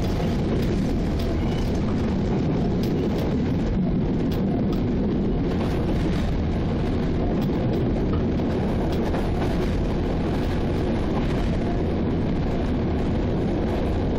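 Czech Class 714 diesel locomotive under way, its engine drone and wheel-on-rail noise running steadily, heard close up from the locomotive's side walkway, with faint scattered clicks over it.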